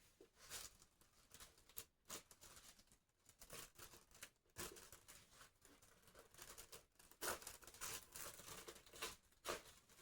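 Faint, irregular rustling and crinkling of a patient and their clothing shifting on a chiropractic table during manual adjustments, with a few short knocks.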